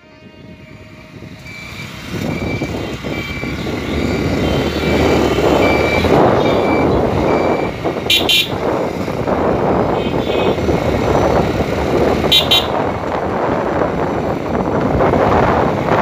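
Vehicle on the move with steady engine and road noise that swells over the first few seconds and then holds. Short evenly spaced horn-like beeps at one pitch sound through the first half, and two brief bright rings come about 8 and 12 seconds in.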